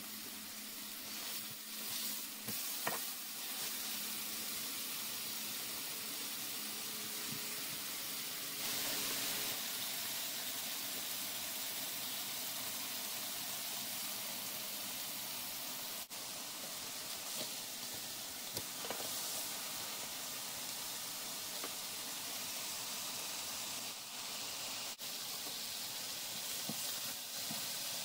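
Ground-beef hamburger patties sizzling steadily on a hot electric griddle at about 350–375 °F, with a few faint pops.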